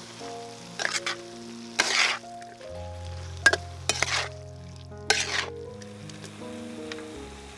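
Food being stir-fried in a hot pan: a few short bursts of sizzling and stirring, about five in all, over instrumental background music.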